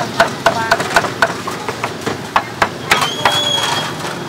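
Cleaver chopping grilled pork on a round wooden chopping block: a quick run of sharp chops, several a second, thinning to scattered strokes after about a second and a half.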